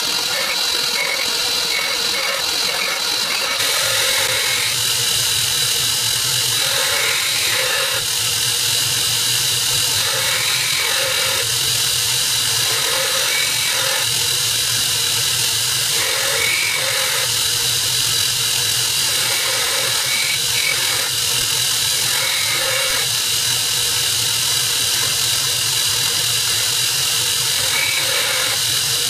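Belt grinder running with a steel knife blade held against the belt by hand, grinding the bevel freehand. It is a steady grinding hiss and whine, and the sound shifts with each pass of the blade across the belt.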